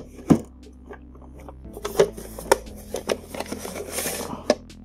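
A Grundig SVC 4 video cassette and its plastic sleeve case being handled: a sharp click, then a run of plastic clicks and sliding scrapes as the cassette moves in its case.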